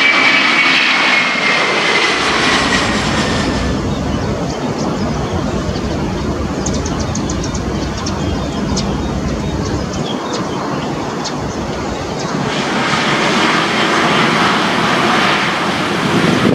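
Airbus A330-300 twin jet engines at takeoff power. A high whine falls in pitch over the first few seconds. A deep rumble then takes over, and a louder rushing noise builds near the end.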